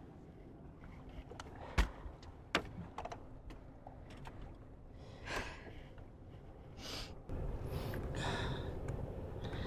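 Scattered knocks and clicks, the loudest a sharp knock about two seconds in, with a few breathy sighs. A steady low rush sets in about seven seconds in.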